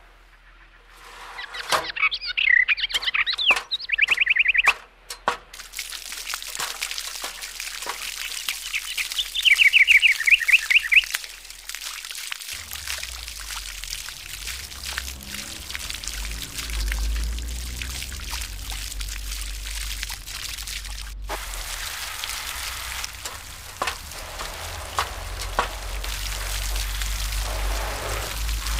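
Birds chirping in short trills, with clicking from a toy fire truck's hand-cranked hose reel in the first few seconds. Then a steady hiss of water from the toy's hand pump spraying and trickling onto a mud-covered toy car, with a low rumble underneath from about halfway.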